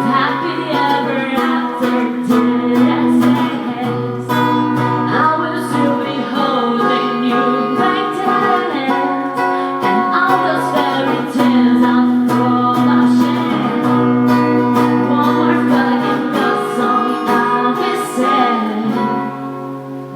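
Acoustic guitar strumming chords with a singing voice over it, a song performed live.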